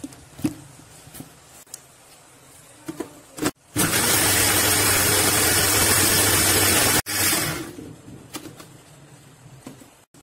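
Electric mixer grinder running at full speed for about three seconds as it blends a liquid mixture, then switched off and winding down. Before it starts there are a few clicks and knocks from the steel jar and lid being handled.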